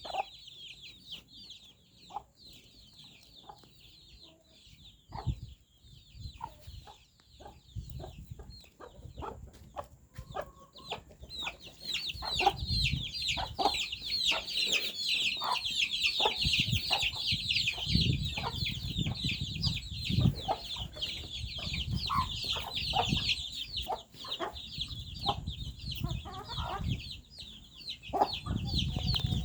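A flock of chickens: a dense chorus of high peeping, much louder from about twelve seconds in, with short clucks scattered through it.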